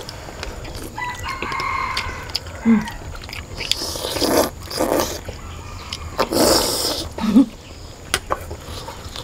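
People slurping noodles: two long, loud slurps about two seconds apart, each followed by a short low hum. Before them, about a second in, a steady two-toned call sounds in the background for about a second and a half.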